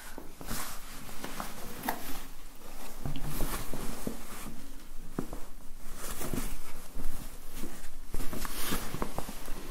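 Navy cotton drawstring trousers rustling and scratching as they are handled and rubbed right against the microphone, in irregular scrapes and small clicks.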